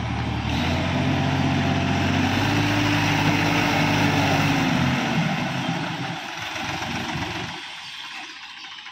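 Sonalika DI 750 tractor's diesel engine working under load with a heavily laden trolley. Its pitch steps up about half a second in, holds steady, then drops back about five seconds in and the engine runs quieter for the rest.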